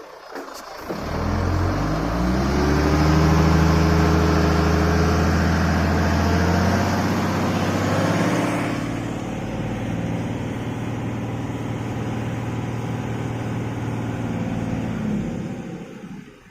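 Diesel engine of an IVECO 420 tractor truck revving up hard under load, its pitch rising over about two seconds and held high, then settling about halfway through to a lower steady run before dropping off near the end. The truck is straining on a sandy slope without making headway.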